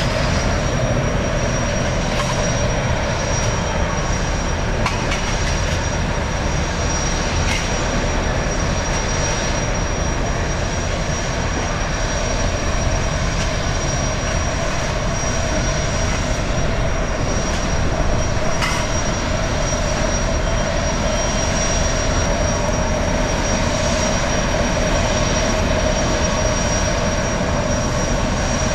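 A jetfoil's gas turbines running as the boat moves slowly across the harbour: a steady high whine over a broad, even rush.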